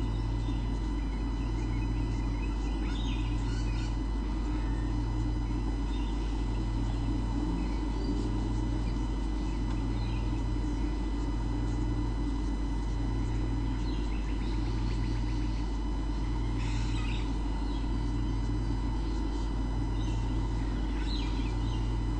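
Steady electrical hum from the nest camera's audio feed, with a low throb pulsing evenly about every second and a quarter and faint steady whine tones above it. A few faint high chirps come through now and then.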